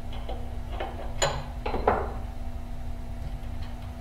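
Short metallic clinks and taps from a collet wrench on the collet nut of a CNC router spindle during a bit change, the two sharpest just after a second in, one with a brief ring. A steady low hum runs underneath.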